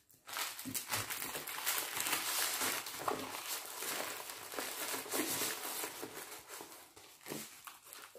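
Plastic-film-covered diamond painting canvas and its paper wrapping rustling and crinkling as they are folded and rolled up by hand; the rustling fades near the end.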